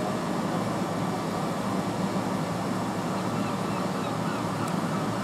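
Steady hum and rush from a Southern Class 377 electric multiple unit standing at the platform, its onboard auxiliary equipment running.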